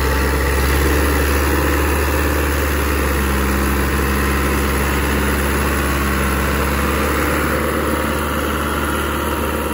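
Massey Ferguson 385 tractor's diesel engine running steadily while working a super seeder; the sound cuts in suddenly at the start and holds an even pitch.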